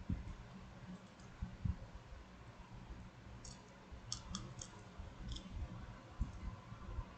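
Faint, sparse clicking: a handful of sharp clicks, several close together around the middle, over low rumbling room noise.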